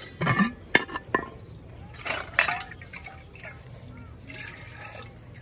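Liquid splashing and pouring in a vessel, with several sharp knocks in the first second or so.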